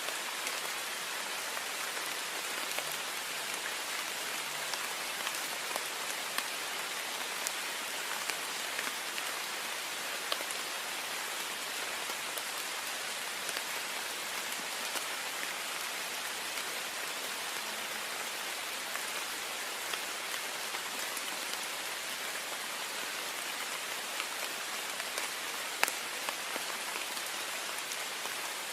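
Heavy rain beating steadily on a window pane, an even hiss with scattered sharper drop ticks, one louder tick near the end.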